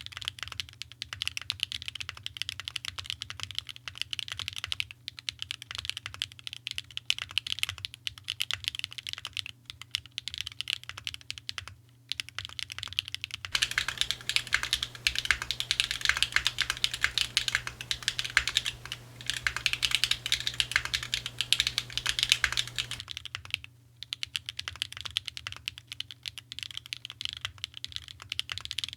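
Typing on a Mode Envoy mechanical keyboard with stock SWK Catmint switches in an aluminium plate, with JTK keycaps and no foam. The rapid key clacks go on with a few brief pauses. They grow louder and denser from about halfway through and ease back near the end.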